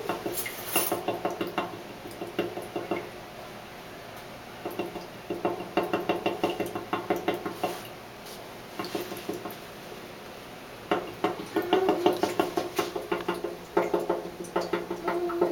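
Carrier central air conditioning system banging: rapid runs of knocks, many a second, coming in bursts of one to four seconds with short pauses between. It happens only when the blower fan is set to AUTO and it is over 80 degrees outside.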